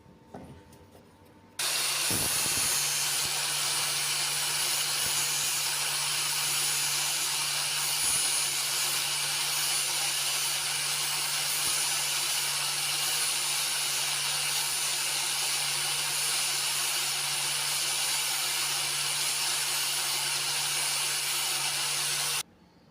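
A power tool grinding steadily, with a constant low hum under a loud, even abrasive noise. It starts abruptly about a second and a half in and stops just as abruptly near the end.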